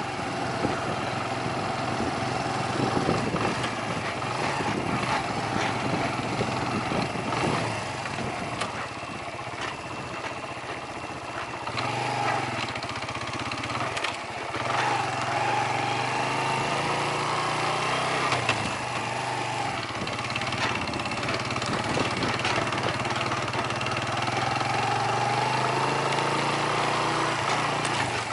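Suzuki 125 motorcycle engine running while being ridden, its pitch dropping briefly a little before halfway and then picking up again.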